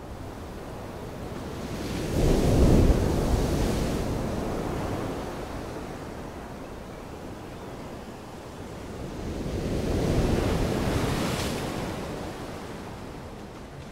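Sea waves breaking against rocks: two large surges about eight seconds apart, each swelling up and washing away, over a steady rush of surf.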